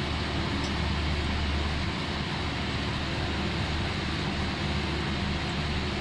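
Steady rushing noise with a low hum from a running fan.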